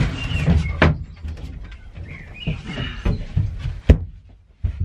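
A wooden slatted pull-out bed frame is slid out and then climbed onto, giving a rustle of wood sliding and several sharp wooden knocks, the loudest about a second in and near four seconds.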